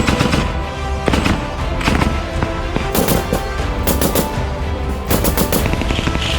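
Machine gun firing blanks in several short bursts of automatic fire, the heaviest about three, four and five seconds in, over background music.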